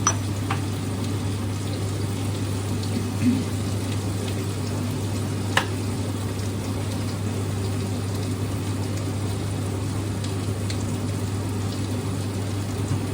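Food sizzling steadily in a pan on the stove over a constant low hum, with one sharp click about five and a half seconds in.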